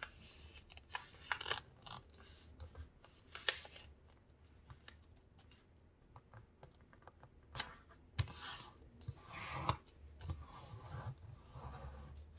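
A sheet of paper being folded and creased by hand on a tabletop: soft, irregular rustles, crinkles and fingertip scrapes as the fold is lined up and pressed flat, with a lull in the middle.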